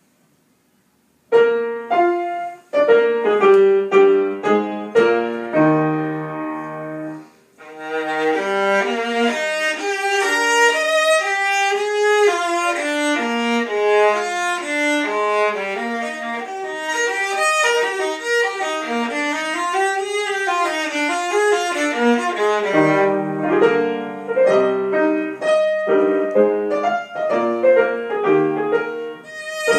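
Violin played with bow and accompanied by piano. It starts about a second in with strong, separate bowed notes. After a brief break it moves into fast running passages of quick notes.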